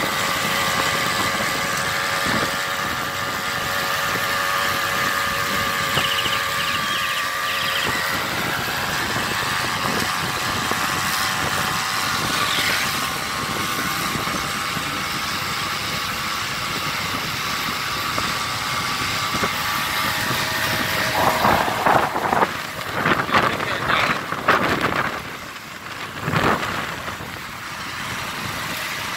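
A small brush-cutter engine fitted to a bicycle runs as the bike rides along the road. Its steady buzzing tone is strongest in the first several seconds, then fades as the bike moves away. A few seconds of louder, irregular noise come near the end.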